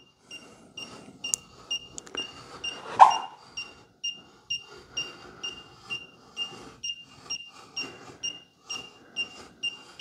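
Klein Tools ET310 circuit breaker finder receiver beeping, short high beeps about two to three a second, as it is slid along the breakers scanning for the circuit that carries the transmitter's signal. Light clicks of the tool's tip passing over the breaker handles, with one louder clack about three seconds in.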